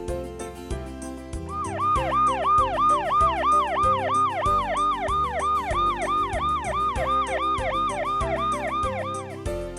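Fire truck siren sound effect in a fast yelp, its pitch sweeping up and down about three to four times a second. It starts about a second and a half in and stops just before the end, over background music with a steady beat.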